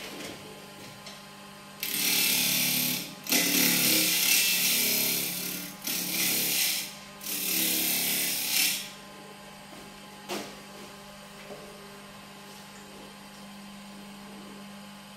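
Wood lathe motor running with a steady hum while a tool works the spinning walnut blank in four loud scraping stretches over about seven seconds, then only the motor hum continues.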